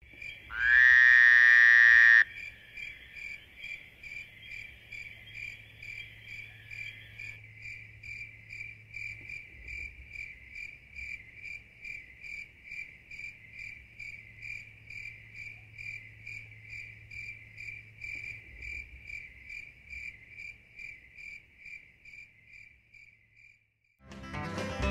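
Steady, even insect chirping, about two to three high chirps a second, that fades and stops shortly before the end. A loud, slightly rising tone sounds over it for a couple of seconds near the start.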